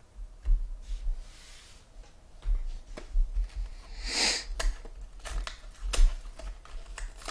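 Trading card boxes and packs being handled on a tabletop: dull knocks and thumps, a short rustling hiss about four seconds in, and a few sharp clicks near the end.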